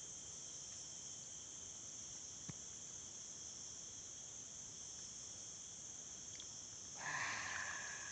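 Steady high-pitched chorus of insects such as crickets, with a faint click about two and a half seconds in and a brief rustling noise near the end.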